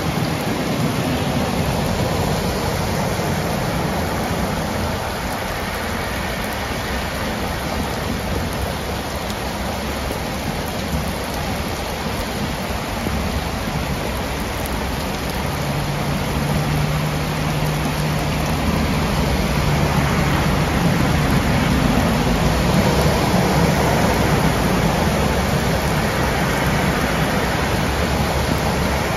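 Torrential rain pouring down and muddy floodwater rushing across a road, a loud, steady hiss with no break. In the second half a low hum joins it, and near the end a car drives through the flooded road, splashing.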